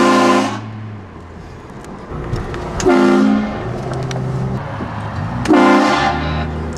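Aftermarket train horn mounted on a car, blasted three times in short bursts. Each blast sounds several notes at once, and the last is the longest at nearly a second.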